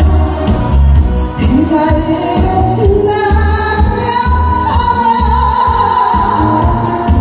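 A woman singing a Korean song through a microphone over music with a steady bass beat; about halfway through she holds one long high note.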